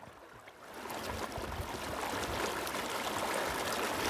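Fast river current rushing over a shallow, choppy riffle: faint at first, rising to a steady rush about a second in.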